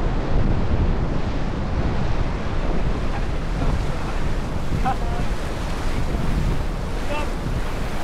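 Whitewater of a Class III river rapid rushing around a raft: a steady, heavy rush of churning water, with wind buffeting the microphone.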